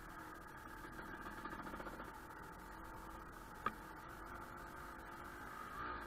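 Dirt bike engine running faint and steady at light throttle while rolling along a trail, with one sharp knock a little past halfway.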